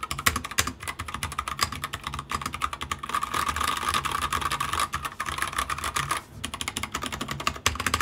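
Fast typing on a YUNZII KC84 75% mechanical keyboard with Gateron Brown switches and PBT keycaps: a dense run of key clacks, with a brief pause about six seconds in.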